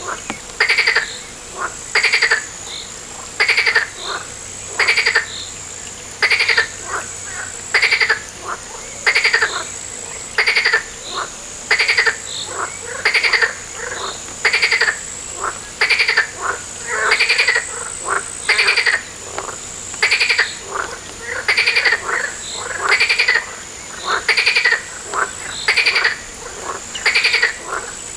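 Frogs calling in a steady rhythm, a short pulsed croak about once a second, with a thin, steady high-pitched whine behind them.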